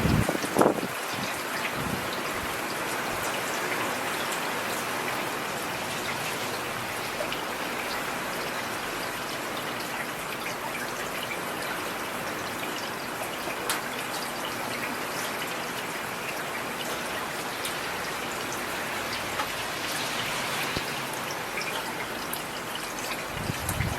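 Steady rain falling, with individual drops striking nearby surfaces. A brief loud thump comes about half a second in.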